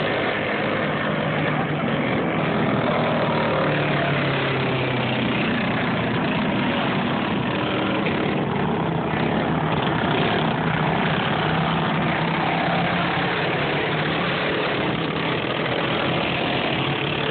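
Several small go-kart engines running together, a steady drone that shifts slightly in pitch as the karts circulate.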